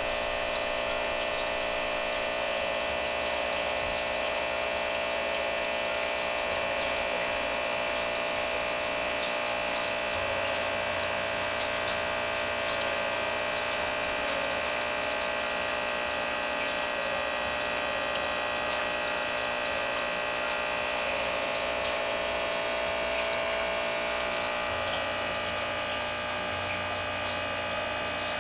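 Aquarium filter running: steady water churning with a steady motor hum.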